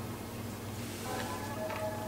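Background music with sustained notes over a steady low hum.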